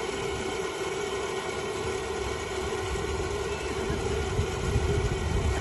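A steady engine-like drone with a constant hum, under irregular low rumbling.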